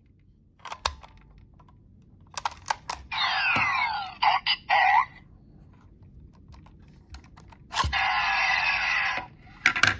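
Kamen Rider Kabuto-style toy transformation belt: plastic parts clicking as it is worked, then two electronic sound effects with sweeping falling tones played through its small speaker, about three seconds in and again about eight seconds in.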